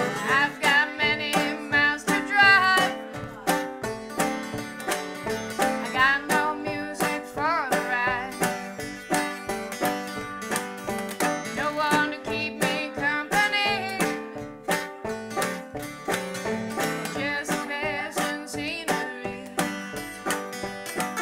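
Acoustic string band playing an upbeat country-bluegrass number: banjo and mandolin picking over a steady washboard rhythm.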